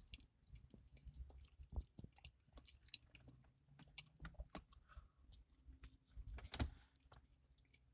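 A person chewing and biting a sandwich close to the microphone: soft, irregular mouth clicks and chewing, with a sharper bite about six and a half seconds in.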